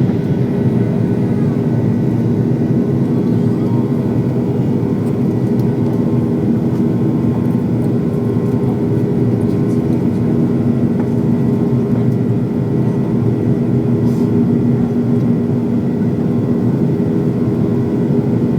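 Jet airliner's engines at takeoff power: a loud, steady rushing drone with a low, even hum.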